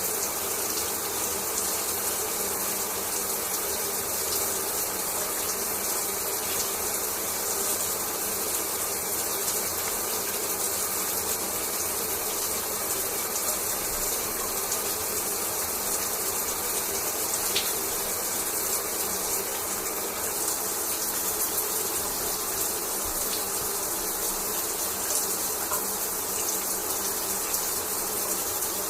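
Shower water running steadily, spray falling in an even hiss.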